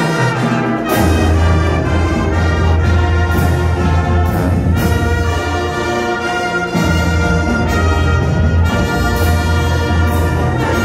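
Marching band playing: the brass section sounds loud, full sustained chords over a low bass line from the sousaphones, with short percussion hits every second or so. The bass line shifts to a new note about seven seconds in.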